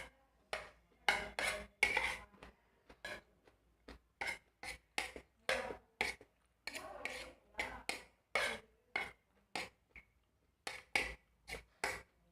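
Close-up eating sounds of swamp cabbage and rice: a run of short, crisp crunches and scrapes, about one or two a second.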